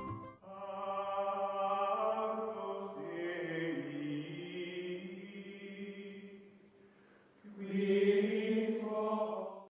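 Outro music of sustained, choir-like chanting voices holding long notes in two phrases, the second one cutting off abruptly.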